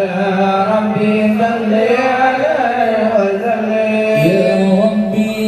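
Sholawat devotional chanting sung through a line-array PA system: a melodic voice holding long notes that bend and waver in pitch, with no drums.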